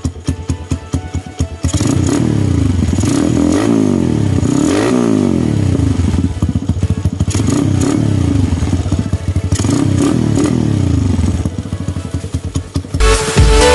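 Motorstar MSX 150X motorcycle engine running through an aftermarket FMF Powercore 4 exhaust. It idles with an even pulse, then from about two seconds in it is revved up and let fall several times, the pitch rising and dropping. Electronic dance music comes in near the end.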